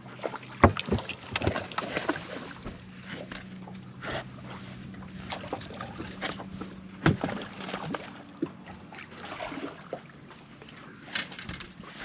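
A hooked smallmouth bass thrashing and splashing at the surface as it is played to the boat and landed: a run of irregular sharp splashes and knocks. Under them is a steady low hum that fades out about halfway through.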